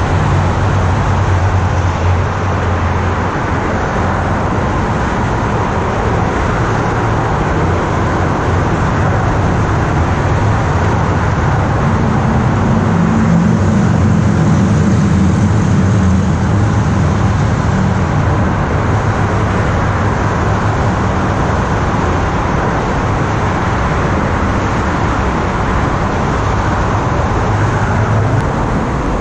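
Steady rumble of road traffic on the highway overpass overhead, with a strong low drone under an even hiss.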